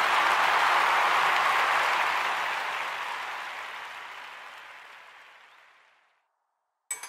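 Applause, an even wash of clapping that fades slowly away to silence over about six seconds. A new music track with sharp percussive knocks starts right at the end.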